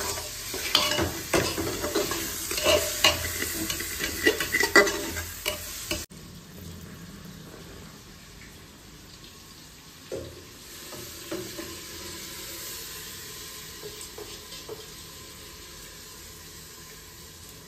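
A metal spoon scraping and knocking around inside an aluminium pressure cooker as rice and spices are stirred, over a sizzle of frying. About six seconds in, the sound cuts suddenly to a quieter, steady hiss with a few light knocks.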